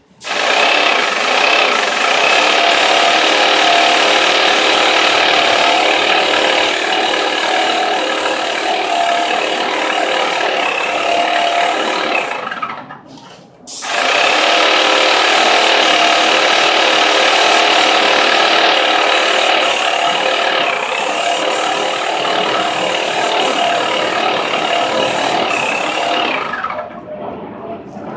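Sectional garage door travelling on its electric opener, a steady mechanical whir with regular clicking about once a second. It runs for about twelve seconds, stops, and then runs again for about twelve seconds.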